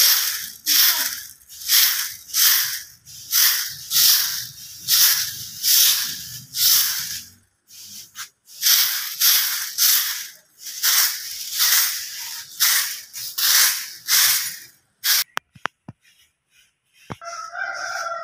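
A broom sweeping leaves on a grass lawn: swishing strokes at roughly two a second, with one short pause about halfway. The strokes stop a few seconds before the end, followed by a few clicks and a short pitched animal call.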